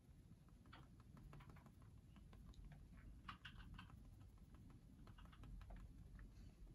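Near silence with faint, irregular soft clicks and taps, a little denser about halfway through.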